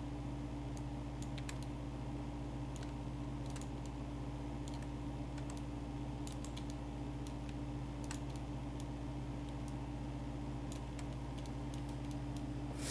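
Computer keyboard and mouse clicks, scattered and irregular, over a steady low hum.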